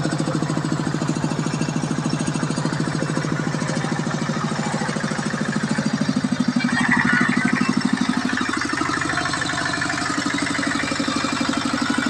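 Engine of a two-wheel walking tractor running steadily under load as it pulls a wooden trailer through deep, soft sandy ruts, getting louder about halfway through.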